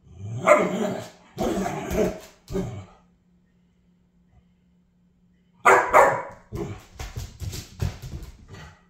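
Bernese Mountain Dog puppy play-barking: three barks in the first three seconds, a pause, then a loud bark followed by a quick run of shorter barks near the end.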